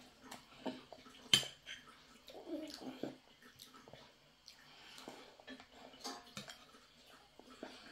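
Metal cutlery clinking and scraping on a ceramic plate as a child eats, with one sharp clink about a second and a half in.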